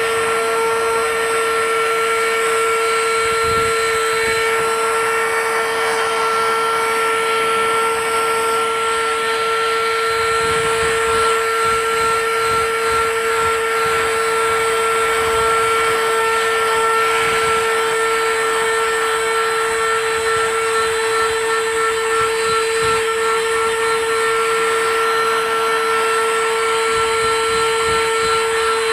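Small battery-powered portable handheld vacuum cleaner running steadily with a constant high whine and airflow hiss, sucking up biscuit crumbs through its brush-tip nozzle.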